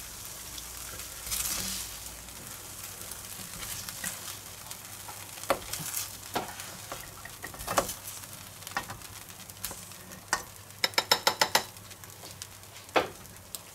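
Kidney beans sizzling in a frying pan while they are scooped out with a slotted spoon. Sharp knocks of the spoon come every second or two, with a quick run of about eight taps near the end.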